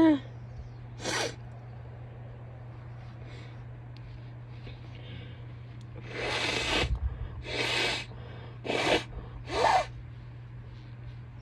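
A woman sneezing once sharply at the start, its voiced tail falling in pitch, then a short sniff about a second later. After a pause come four breathy nasal bursts of sniffling and sneezing, the first and longest about a second long, the last with a little voice in it.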